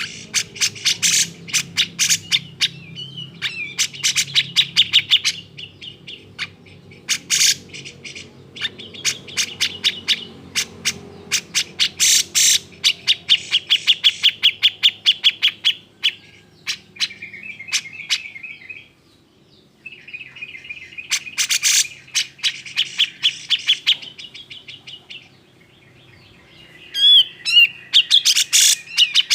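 Grey-cheeked bulbul (cucak jenggot) giving agitated, excited calls: bursts of rapid harsh chattering notes and buzzy trills, broken by short pauses.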